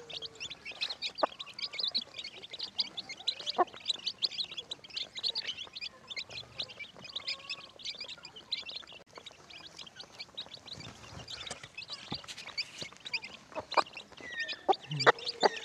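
A brood of young chicks peeping constantly while feeding, many short high peeps overlapping. A few sharp taps stand out among them.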